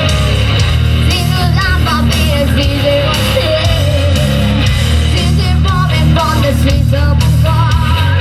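Heavy metal played on electric guitar over a full band sound with bass and drums, the guitar picking out a wavering melodic line.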